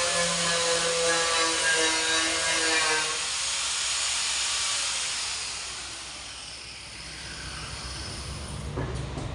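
Angle grinder with a sanding disc grinding down the metal of a dented car body panel, running with a steady whine, then lifted off and winding down about five seconds in, its pitch falling as it slows.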